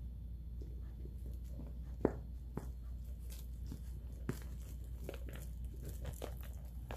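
A terrier puppy chewing and tugging a large plush toy: scattered soft rustles and bites on the fuzzy fabric, with one sharper click about two seconds in.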